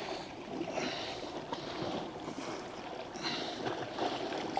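Sea washing around rock ledges, a steady wash that swells twice, about a second in and a little after three seconds in.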